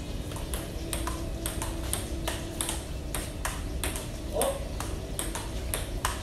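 Table tennis forehand rally: the celluloid ball clicking off the paddles and bouncing on the table in a steady back-and-forth rhythm, about three to four clicks a second. A brief voice sound cuts in a little past the middle.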